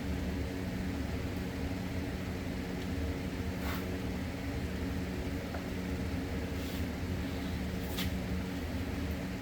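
A steady mechanical hum with a low rumble, like a shop fan or other running machine, with a few faint light clicks.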